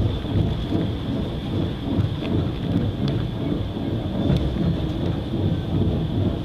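Deep, continuous rumble of heavy quarry machinery: a Caterpillar wheel loader's large diesel engine working as the loader backs away from a rock crusher's feed hopper, over the crusher running. A faint steady high whine runs underneath.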